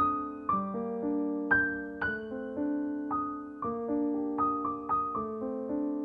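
Background music: solo piano playing a gentle, flowing melody over broken chords, each note struck and left to fade, several notes a second.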